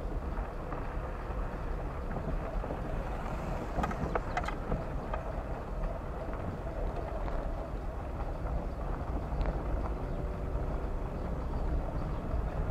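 A car driving at a steady pace: a low, steady engine and road rumble, with a few short knocks or rattles about four seconds in.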